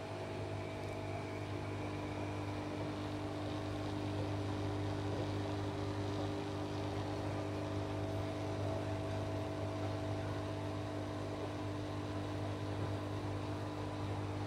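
Aquarium pump and aerator humming steadily, with a low hum and a few steady tones over an even hiss of air bubbling from the air stone.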